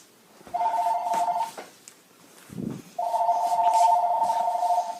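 Phone call ringing tone heard through a phone's speaker: a steady two-note tone sounds for about a second, stops, then sounds again for about two seconds. The call is waiting to be answered.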